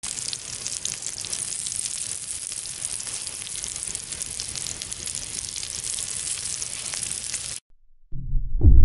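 Sausages sizzling and crackling in hot fat on a stone slab, a steady hiss full of tiny pops that cuts off abruptly near the end. A loud low rumble starts just after.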